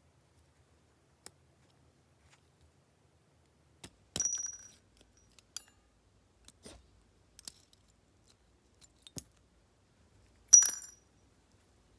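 Small metal parts clinking and tapping on a hard surface: a few light clicks, and two sharper clinks with a brief high metallic ring, about four seconds in and near the end.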